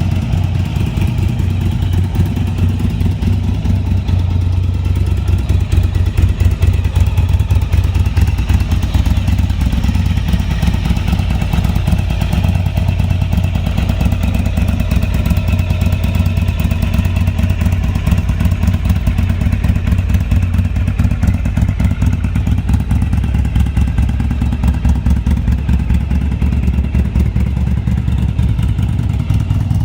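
Yamaha XV750 Virago V-twin running steadily through a debaffled exhaust, with a deep, loud, pulsing exhaust note.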